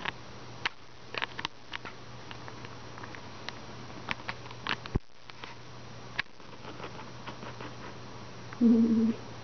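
Persian kittens' paws pattering on a hardwood floor as they play, a scatter of light, irregular clicks and taps. Near the end comes one short, loud, steady-pitched sound lasting about half a second.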